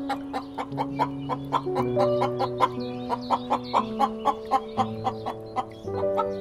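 Hens clucking in short, repeated clucks over background music of slow, held chords.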